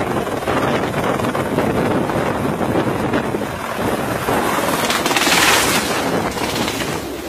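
Helicopter turbine and rotor noise under heavy wind buffeting on the microphone as the helicopter rolls over on its pad and its main rotor blades strike and break apart; a louder rush of noise comes about five seconds in.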